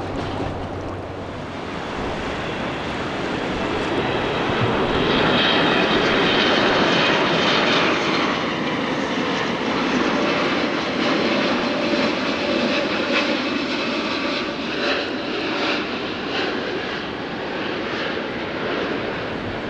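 Boeing 777-300 airliner on final approach with its landing gear down, its jet engines running in a steady rumble that swells a few seconds in and carries a high fan whine, then holds strong.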